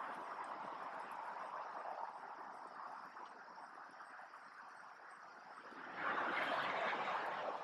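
Steady noise of traffic on a nearby major highway, swelling louder about six seconds in.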